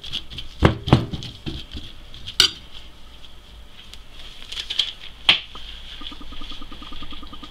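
Metal spoon stirring a raw minced-meat, pepper and onion filling in a ceramic plate, with scraping and several sharp clinks of spoon on plate.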